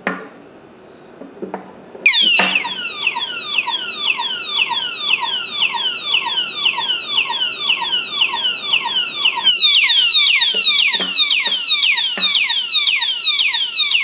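Alarm siren padlock's built-in motion alarm set off by moving the lock: a loud electronic siren of rapidly repeated falling sweeps, about two a second, which starts about two seconds in after a couple of handling clicks, grows louder partway through and cuts off suddenly after about twelve seconds.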